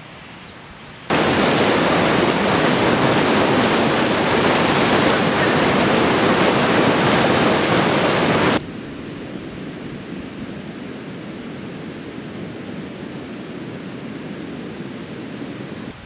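Fast mountain river rushing over rapids: a loud, steady rush of white water that starts suddenly about a second in and cuts off abruptly after about seven and a half seconds. A softer, lower steady rush follows.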